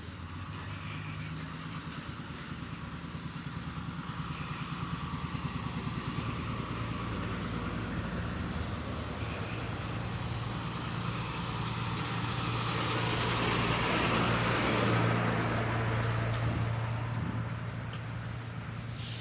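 Heavy road-construction machinery's engine running steadily with a low hum, growing louder to a peak about three-quarters of the way through, then easing off a little.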